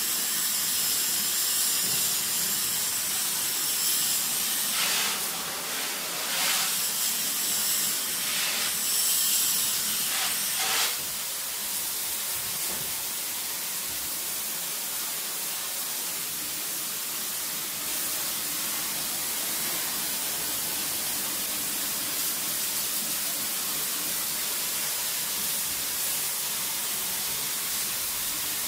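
Water spray from a pressure-washer hose blasting the evaporator coil of a wall-mounted split air conditioner indoor unit: a steady hiss, with a few short louder surges in the first ten seconds or so.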